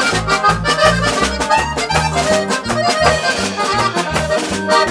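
Instrumental break of a corrido: accordion melody over a steady, bouncing bass line.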